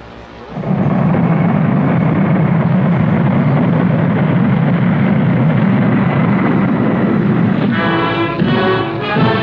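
A loud, steady low rumbling noise that starts about half a second in, with brass theme music of sustained chords coming in near the end.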